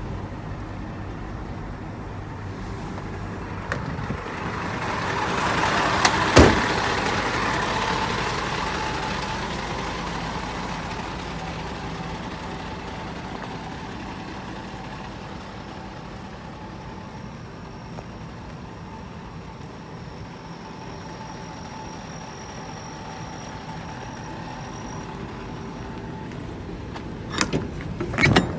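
Hino Ranger truck's diesel engine idling steadily. There is a single sharp bang about six seconds in, and a few metal clanks near the end as the rear cargo-box door's latch is handled.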